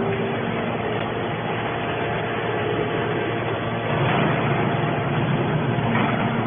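Scrap metal baler running: a steady machine noise with a faint hum, getting a little louder about four seconds in.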